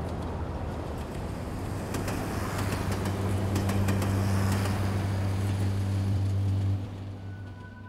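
Street traffic noise with a steady low engine hum, fading away near the end.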